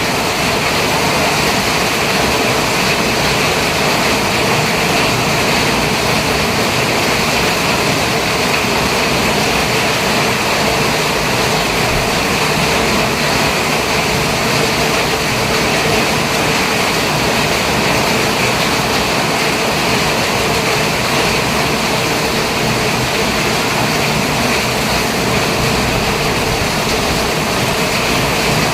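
Steady engine and road noise of a small vehicle being driven, an even rush without breaks or changes.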